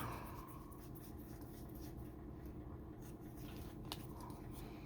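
Faint rustling and sliding of trading cards and their foil pack being handled, with one light tap about four seconds in.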